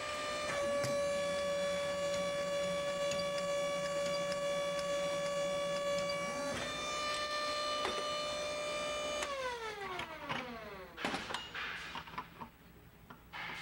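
Hydraulic paving vibrator running on a hydraulic test stand during a slip test, giving a loud steady whine that shifts slightly in pitch twice. About nine seconds in it is shut off and spins down, the whine falling steadily in pitch over about two seconds. A few metallic knocks and clatter follow.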